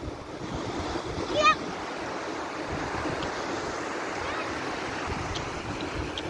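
Small surf breaking and washing up the sand in a steady rush. About a second and a half in, a brief high-pitched voice calls out once.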